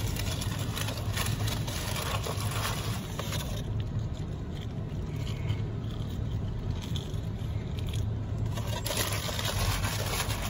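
Steady low rumble heard from inside a car stopped at a railroad crossing while a freight train passes, with scattered small clicks and scrapes.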